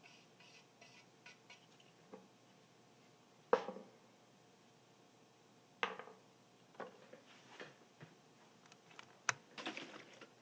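Tools and parts being handled during a speaker foam repair: faint scratching at first, then a series of separate sharp taps and clinks, the loudest about three and a half seconds in.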